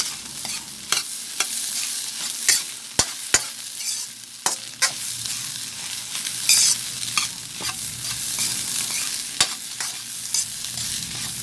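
Metal ladle scraping and clinking against a wok as fried rice with Chinese sausage is stirred and turned, with a steady sizzle of frying underneath. The clinks come irregularly, about once or twice a second, and stand out above the sizzle.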